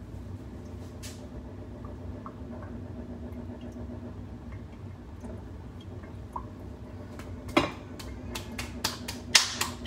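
Dishes and utensils being handled on a kitchen counter over a steady low hum. There is one sharp clack about three-quarters of the way in, then a quick run of clicks and knocks near the end.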